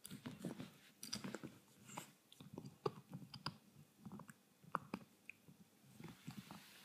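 Beagle puppy gnawing on a hard antler chew: irregular clicks and crunches of its teeth biting and scraping the antler.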